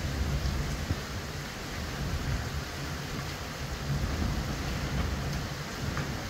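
Hurricane wind and rain: a steady rushing hiss over a low, uneven rumble.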